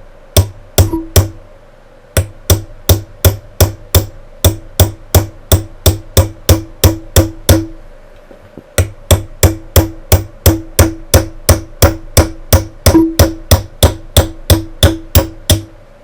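Small ball-peen hammer tapping a punch to drive a roll pin out of a Sig P250 pistol slide: sharp metallic taps about three a second, each with a short ring, in three runs with brief pauses about a second in and near the middle.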